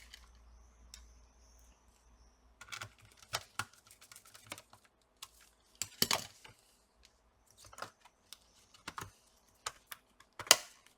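Irregular small clicks and taps of hands and tools handling parts on an open laptop's plastic chassis, with louder knocks about six seconds in and near the end.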